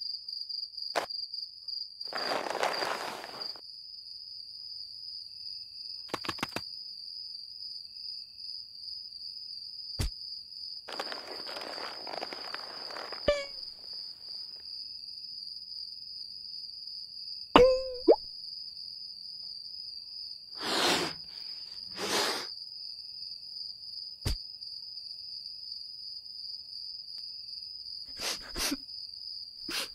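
Steady high cricket chirring as night ambience, with scattered cartoon sound effects over it: longer swishing noises about 2 and 11 seconds in, a few sharp clicks, a short sliding squeak about 18 seconds in, and two quick swishes around 21 and 22 seconds.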